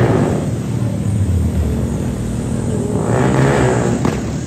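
Motorcycle engines running, swelling twice as bikes rev or pass: once at the start and again about three seconds in.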